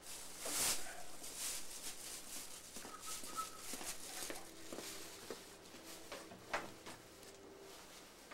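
Plastic shopping bag rustling and crinkling as it is handled and carried, loudest about half a second to a second in, with scattered light clicks and knocks.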